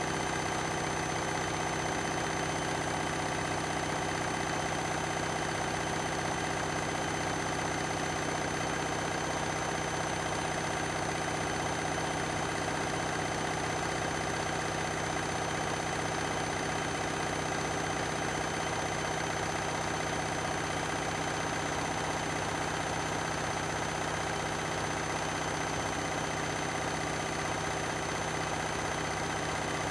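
Beko and Candy washing machines spinning together at a steady speed: a constant motor hum and drum whir with several fixed whining tones.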